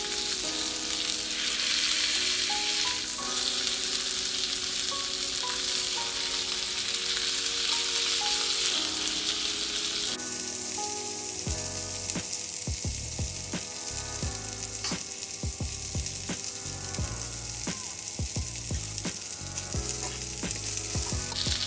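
Salmon frying in hot oil in a nonstick pan, a steady sizzle that drops off sharply about halfway through. In the second half, metal tongs click and knock against the pan as the pieces are turned over.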